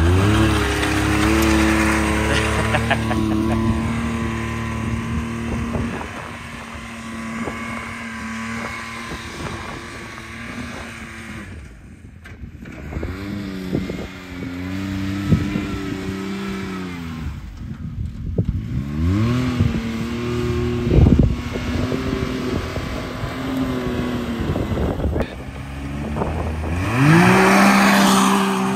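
Turbocharged three-cylinder engine of a Can-Am Maverick X3 XRS side-by-side revving hard again and again, its pitch climbing, holding and dropping with each run, as 30-inch steel saw-blade wheels dig through dirt in 4x4 diff lock. The loudest run comes near the end, with the hiss of dirt being thrown.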